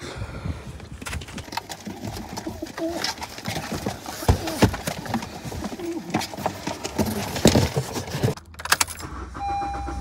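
Pigeons cooing inside ventilated cardboard bird-shipping boxes, among knocks and scrapes of the boxes being handled and loaded into a car. Keys jangle near the end.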